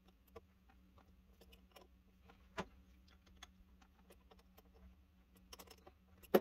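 Faint, scattered small metal clicks and ticks of a small wrench and a brass compression fitting being handled and tightened on a refrigerator water line, with a sharper click about two and a half seconds in and the loudest one at the very end, over a faint steady hum.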